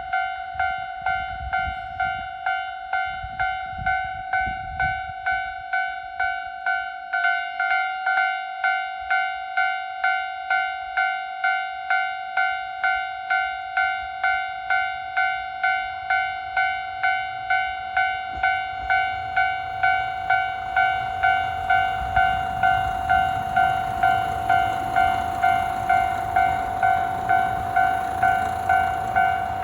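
Japanese level-crossing warning bell ringing at a quick, even beat. From about twenty seconds in, an approaching diesel train's rumble builds underneath it.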